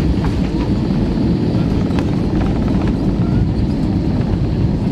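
Airbus A319 touching down and rolling out on the runway, heard from inside the cabin over the wing: a loud, steady rumble from the wheels and engines, with a bump near the start and a few light knocks and rattles.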